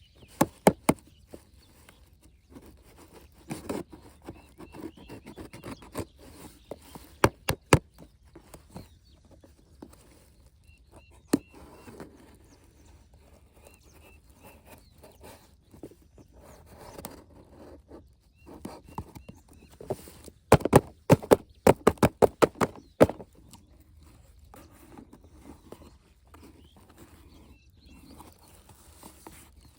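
Plastic toy tractors and their packaging being handled: soft rustling and scraping, broken by sharp clicks and taps, with a quick run of about a dozen clicks some two-thirds of the way through.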